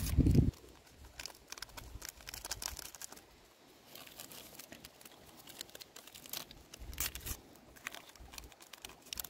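Small paper vanilla sachets crinkling and tearing by hand as they are opened and shaken out, in faint scattered crackles. A low rumble at the very start stops after about half a second.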